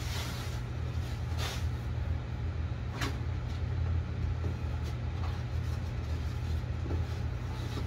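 Plastic packaging wrap rustling as it is handled, with a few short knocks, over a steady low hum.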